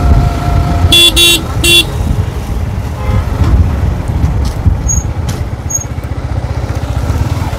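A vehicle horn honks three times in quick succession about a second in, over the steady low rumble of a motorcycle on the road.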